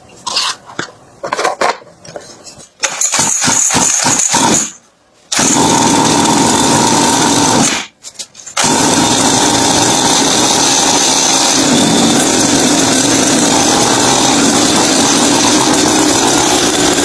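Dirt bike engine starting: a few short sputtering catches, then running steadily, dropping out briefly twice.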